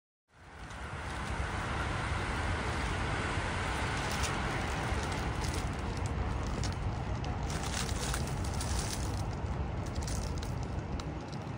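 Steady outdoor background noise, a low rumble under a hiss, fading in just after the start, with scattered faint crackles and ticks through the middle and later part.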